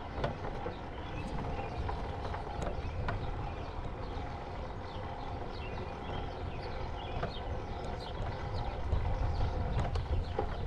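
Bicycle rolling along a concrete path: steady tyre and wind noise with scattered clicks and rattles, the low wind rumble growing louder near the end.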